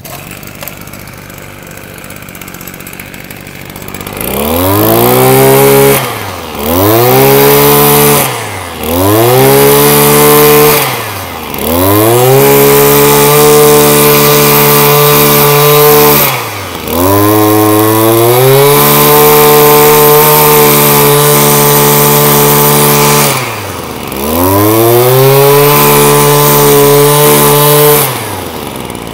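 Maruyama 23cc two-stroke brush cutter engine running on a test start: it comes up to high revs about four seconds in, then is held at full throttle in long stretches, dropping briefly back toward idle about six times between them.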